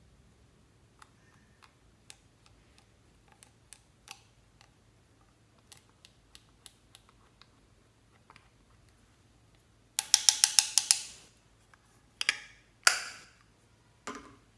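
A plastic spatula scraping and clicking against a small plastic eyeshadow palette, in light scattered ticks. About ten seconds in comes a quick run of roughly ten sharp clicks, followed by a few louder knocks near the end.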